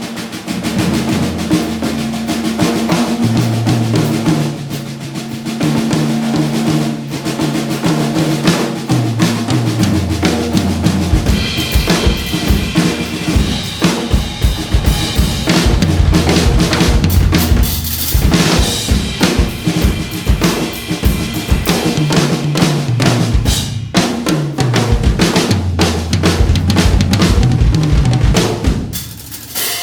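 A Nagano Work Series 100% birch drum kit played in a full groove, with kick drum, snare, fills and cymbals, over a backing track with a stepping bass line.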